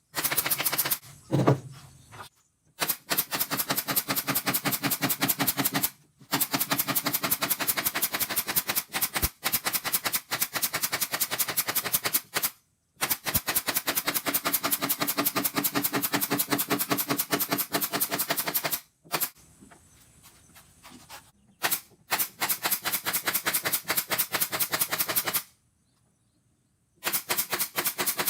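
Impact driver hammering rapidly in runs of several seconds, stopping and starting again between screws.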